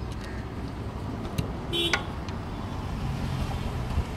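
Steady background hum of road traffic and workshop noise, with one brief high-pitched toot about two seconds in.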